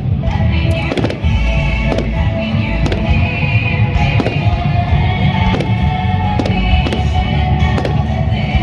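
Aerial fireworks bursting one after another, about one or two sharp bangs a second, over loud music.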